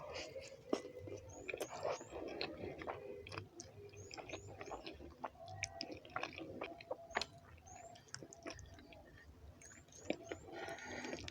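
Close-miked chewing of a mouthful of rice and beans, with many small, sharp wet mouth clicks and smacks.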